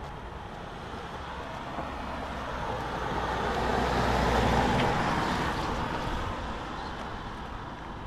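A car passing close by, its engine and tyre noise swelling to a peak about halfway through and then fading away.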